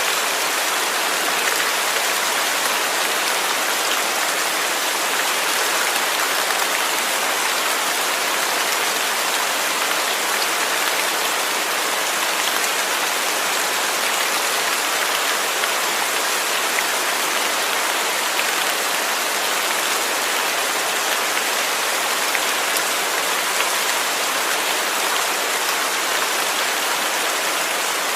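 Steady rain falling on a surface, an even hiss of many drops with faint patter, unchanging throughout.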